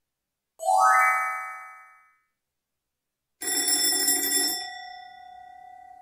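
Two cartoon sound effects: a short tone that glides up in pitch and fades, then, about three and a half seconds in, a bell that rings for about a second and then rings out, fading slowly.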